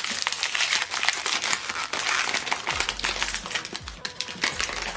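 Plastic packaging of an ink cartridge crinkling and crackling in a steady run of small irregular crackles as it is unwrapped by hand.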